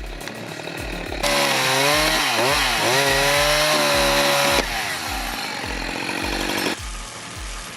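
Chainsaw cutting, loud from about a second in until past four seconds, its pitch dipping and recovering under load in the middle, then running quieter. A steady music beat plays underneath.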